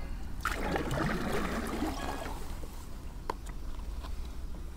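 Kayak paddle strokes in calm river water: the blade dipping and pulling through with splashing and dripping, loudest in the first couple of seconds, over a steady low rumble.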